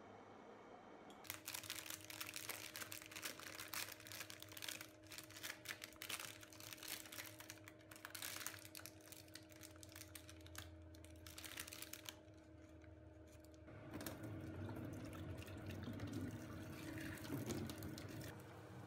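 A quick, dense run of small clicks and scrapes. Then, about 14 seconds in, water pours from an electric kettle into a stainless-steel sink, emptying it after descaling.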